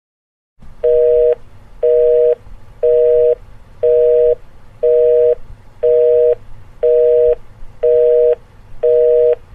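Telephone busy signal: two steady tones sounding together in nine half-second beeps, about one a second, over a faint line hiss.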